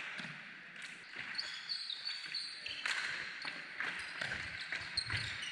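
Indoor hockey sticks knocking the ball in an echoing sports hall, with a few sharp knocks and high shoe squeaks on the wooden floor about a second in and again near the end.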